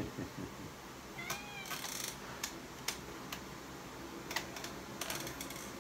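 A domestic cat meows once about a second and a half in, a short call that rises and falls in pitch. A few light ticks and taps are heard around it.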